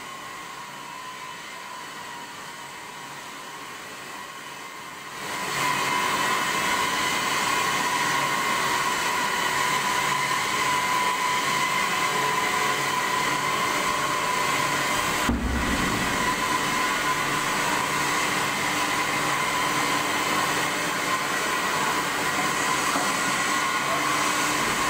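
Steady machinery noise of a hydraulic forging press working a red-hot steel plate, a constant hum with a steady whine over it. It grows louder about five seconds in and drops out for a moment around the middle.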